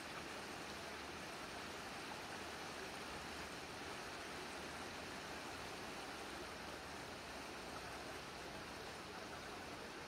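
A mountain stream rushing steadily, a constant even wash of water.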